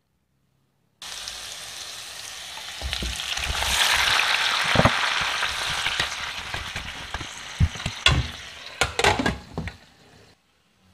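Tomato wedges sizzling as they hit a hot pan of butter and oil, starting suddenly about a second in, louder a few seconds later and then dying down as they are stirred. A few sharp knocks against the pan come near the end.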